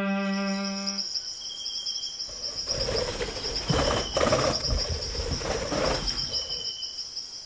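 A held cello note ends about a second in. A steady high-pitched insect trill follows and holds to the end, with bird calls over it in the middle.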